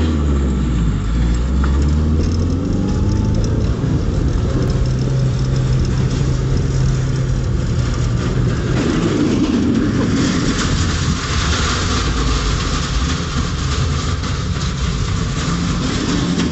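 Car engine running and revving, heard from inside the cabin, its pitch climbing in the first few seconds and then holding steady as the car drives up steel ramps into the back of a coach. Over the second half a broad rush of noise and rattling knocks takes over as the car goes up the ramps and into the coach.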